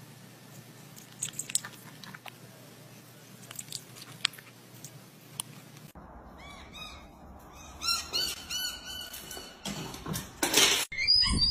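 Guinea pig nibbling on a finger, heard as faint scattered clicks. Then birds chirp repeatedly, with a brief loud rush of noise near the end.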